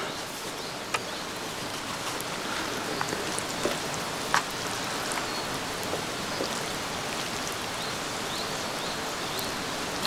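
Steady hiss of rain falling, with a few scattered sharp ticks.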